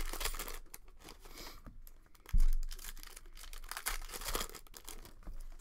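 Plastic wrapper of a basketball trading-card pack being torn and crinkled by hand in quick, irregular crackles. A dull low thump comes a little over two seconds in.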